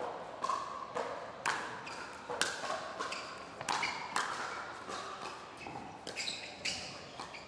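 Pickleball rally: paddles striking a hard plastic pickleball back and forth, a quick series of sharp pops at about two a second.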